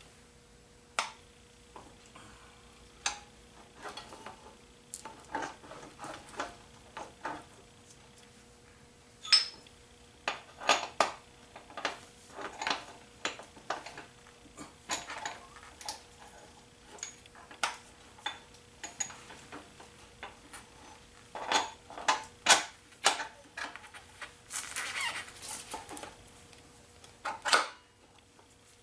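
Irregular metallic clinks and knocks as a small motorcycle's front wheel hub and drum-brake panel are worked onto the fork, with a short stretch of scraping near the end.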